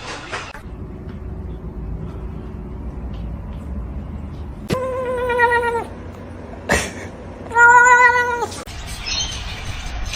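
A cat meowing twice, two drawn-out calls of about a second each at a steady pitch, with a sharp knock between them.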